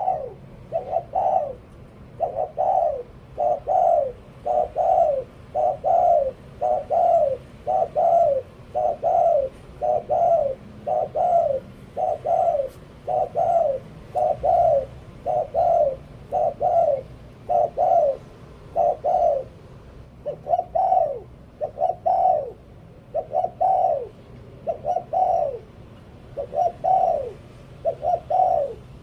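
Spotted dove cooing over and over: short, falling coos in a steady rhythm, strung into repeated phrases in the 'liu tan' cooing style.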